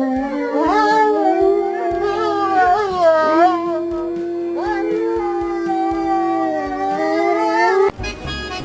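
A dog howling in long, drawn-out notes that bend and slide in pitch. Near the end the howling cuts off and accordion music takes over.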